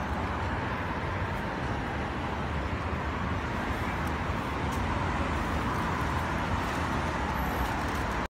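Steady city traffic noise, an even rumble and hiss with no distinct events.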